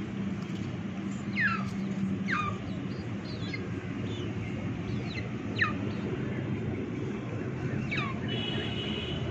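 Chicks peeping: about half a dozen short, high, downward-sliding peeps at irregular intervals, over a steady low rumble.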